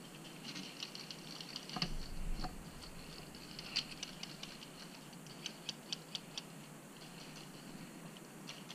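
Faint, scattered sharp clicks and ticks of airsoft guns firing, some in a quick run of three or four.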